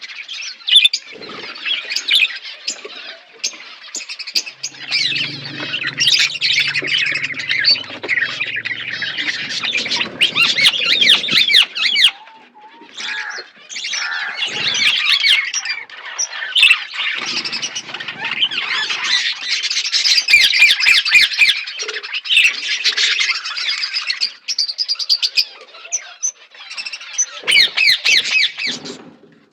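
A flock of budgerigars chattering, with many overlapping chirps and squawks, dense and continuous apart from a brief lull about twelve seconds in, and scattered sharp clicks.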